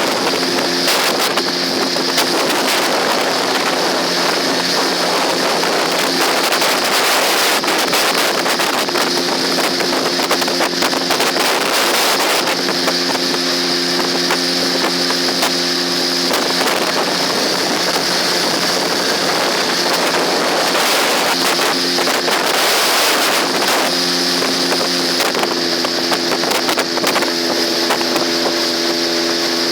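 Parsun T15 two-stroke outboard motor running steadily under way, its engine tone fading in and out under heavy wind buffeting on the microphone and the rush of water.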